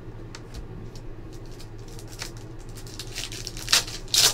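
Trading cards being handled and flipped on a desk: soft scratchy slides and light taps, then two louder crinkling rustles of a card-pack wrapper near the end.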